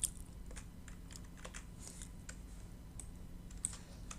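Scattered light clicks of a computer keyboard and mouse as Photoshop shortcuts and clicks are made, over a faint low hum.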